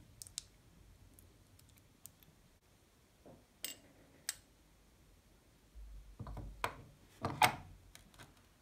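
Light clicks and knocks of an angle grinder's metal gear-head parts being handled: the gear cover with its bevel gear lifted off the greasy gearbox and a cover and spindle assembly seated back onto the aluminium housing. Scattered sharp clicks, then a cluster of knocks in the last few seconds, the loudest near the end.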